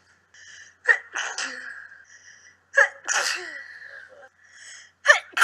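A person sneezing three times in a row, about two seconds apart; each sneeze is a sharp burst that trails off.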